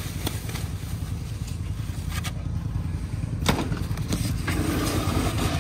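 Foam packing wrap rustling and crinkling in short strokes as it is pulled off a new snowmobile in its crate, over a steady low rumble.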